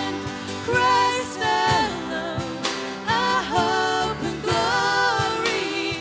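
Worship song: a voice singing a melody over acoustic guitar accompaniment.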